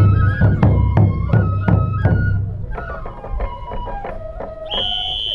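Japanese festival music: a transverse flute plays a stepping melody over regular drum beats, about three a second, with a high, shrill held note near the end.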